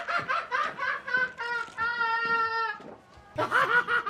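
Human voices: a long, steady, high-pitched held cry about a second and a half in, then quick pulses of laughter near the end.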